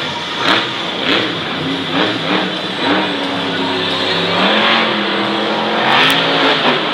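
Monster truck's supercharged V8 revving hard, its pitch climbing and falling as the throttle is worked, with several short sharp noises over it.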